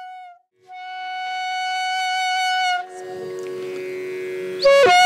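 Carnatic ensemble opening a piece: a held wind-instrument note breaks briefly about half a second in and resumes, swelling. A lower steady drone follows from about three seconds. Near the end a violin enters loudly with the opening melody in sliding, bending ornaments.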